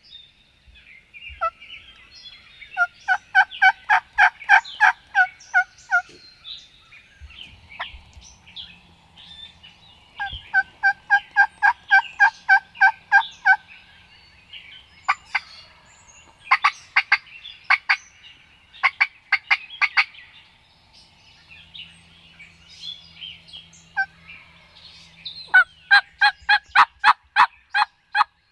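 Wild turkey yelping: three runs of rapid, evenly paced yelps at about four notes a second, with sharp single clucks and cutts in between. Songbirds chirp faintly behind.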